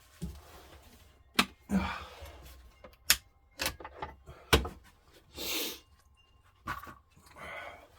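Handling noises: about five sharp clicks and knocks spread out, with three short rustling hisses between them.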